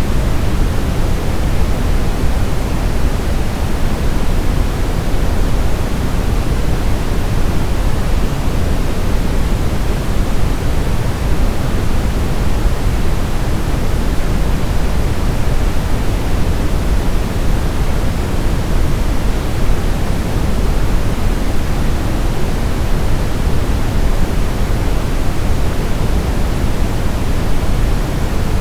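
Continuous generated white noise for baby sleep: a steady, even rushing hiss, heavier in the low end, that never changes.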